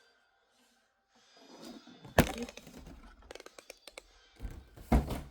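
Packaging being handled as a coffee maker is unboxed: rustling, a sharp loud crack about two seconds in, a quick run of small clicks, then a heavy knock near the end.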